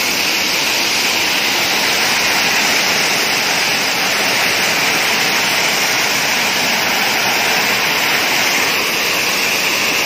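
River water pouring down the stepped stone face of a weir, a steady rushing that holds even throughout.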